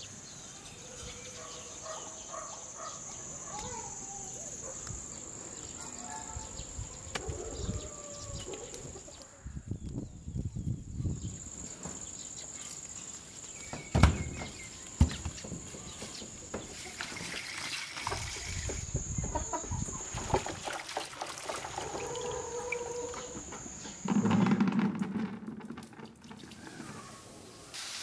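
Rural ambience with chickens clucking and a rooster crowing, over a steady high-pitched shrill. Two sharp knocks stand out about halfway through, and a brief low rumble comes a few seconds before the end.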